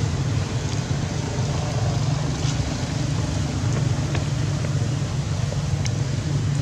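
Steady low outdoor rumble with a few faint ticks; no monkey calls.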